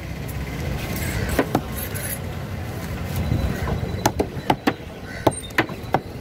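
Large broad-bladed knife chopping tuna flesh on a wooden block: a couple of single knocks early, then a quick run of knocks, about three or four a second, from about four seconds in. A steady low engine rumble from passing traffic runs underneath.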